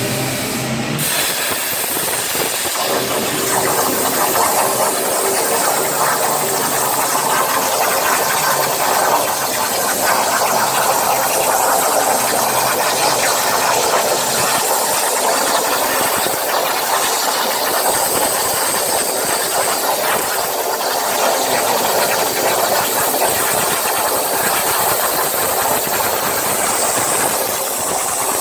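CNC plasma cutting torch running at 85 amps through 20 mm steel plate: a steady, loud hiss of the plasma arc and its air jet, settling in about a second in and holding even as the cut goes on.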